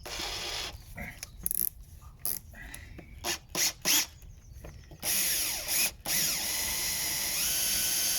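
Power drill turning a flathead bit pressed into a rounded-off screw head, working the screw out of timber. It starts in a few short bursts, then from about five seconds runs steadily, stopping briefly near six seconds.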